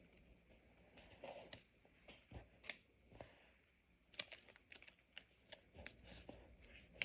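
Near silence with faint, scattered small clicks and taps from hands handling things on a hard surface.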